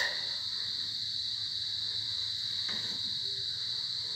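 Steady, high-pitched insect trilling that goes on without a break.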